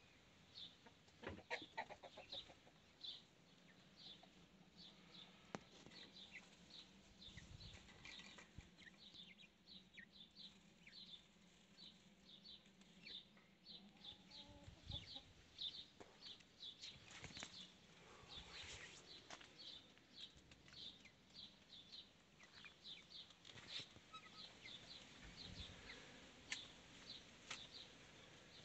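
Faint, rapid high chirping of small birds, two to three short chirps a second, going on throughout. A few soft rustles and knocks come with it, the loudest a couple of seconds in and again about two-thirds of the way through.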